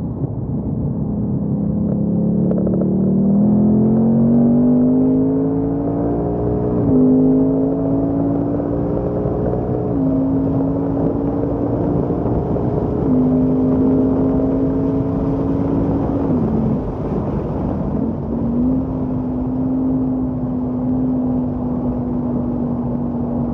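Ford Mustang Mach 1's 5.0-litre V8 heard from inside the cabin under hard acceleration. It rises in pitch for the first several seconds, drops sharply at a shift about seven seconds in, then holds a nearly steady high pitch with a few brief dips. Tyre and wind noise run underneath.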